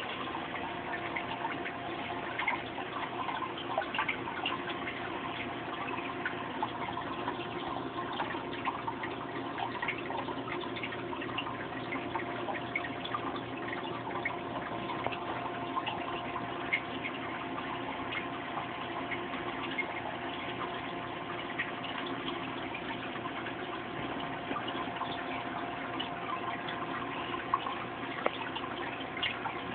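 Water trickling and dripping steadily in a turtle's aquarium, with many small irregular drips and a faint constant hum underneath.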